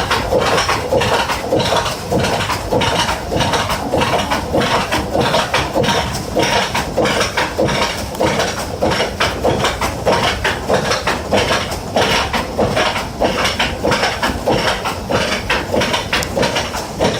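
Water-powered up-and-down sash sawmill running: the saw blade rasps through a log in a steady rhythm of strokes, with knocking and clattering from the wooden frame and gearing.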